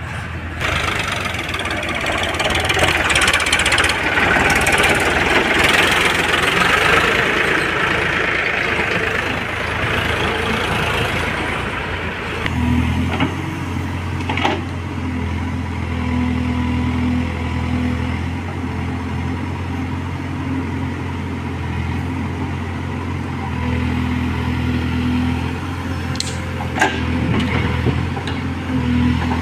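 Diesel farm tractor running as it pulls a trailer along a dirt lane. About 12 seconds in, this gives way to a backhoe loader's diesel engine running steadily while it digs and loads mud, with a few sharp metallic clanks.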